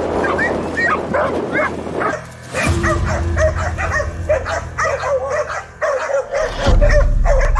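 Pig-hunting dogs in a vehicle's dog box yelping and whining excitedly: a rapid, continuous string of short, high yelps. Background music plays underneath.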